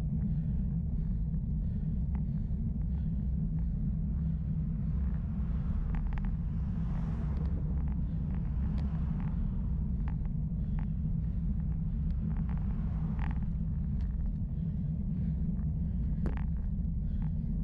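Steady low rumble of road and wind noise picked up by a camera mounted on a bicycle climbing a lane. An oncoming car passes about seven seconds in, and there are a few faint ticks.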